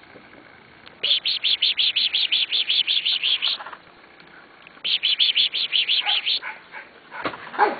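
A bird singing a rapid trill of evenly repeated high notes, about eight a second, in two bouts a little over a second apart.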